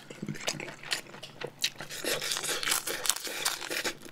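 Person chewing a bite of crispy pan-fried dumpling close to the microphone: irregular crunches and mouth clicks.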